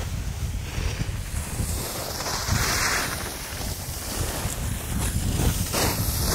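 Wind buffeting the microphone in gusts: an uneven low rumble with a hiss that swells and fades.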